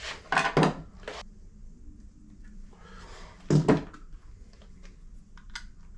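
Metal hand tools clanking on a workbench as spanners are handled: two sharp clanks near the start, a louder one about three and a half seconds in, and light clicks between.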